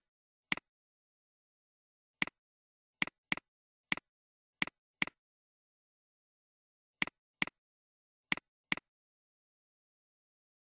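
Computer mouse clicks: about eleven short sharp clicks at irregular intervals, several in quick pairs, with dead silence between them.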